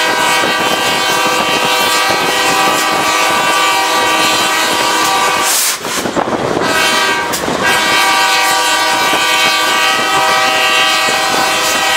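Locomotive's multi-chime air horn sounding two long blasts with a short break between them, heard from on board the moving train. It is the warning sounded as the train nears a level crossing.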